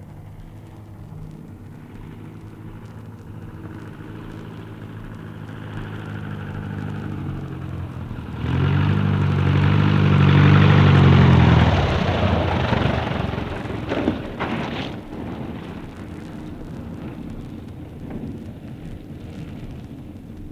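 Auster light aircraft landing: its single propeller engine grows louder, is loudest and closest a little before halfway, then eases off. A few short knocks come about two-thirds of the way through, as the aircraft comes in.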